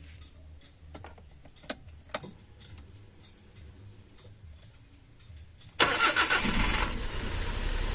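Suzuki DA64 minivan's K6A three-cylinder engine started: a few faint clicks, then about six seconds in a sudden brief crank and catch that settles into a steady idle. The idle is rough and shaking from a misfire, which the owner traces to a failing ignition coil pack on cylinder number 1.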